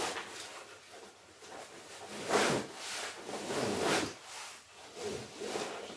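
A padded fabric fishing-rod case being handled and shifted, its fabric rubbing and rustling, with the loudest scrape about two and a half seconds in and another near four seconds.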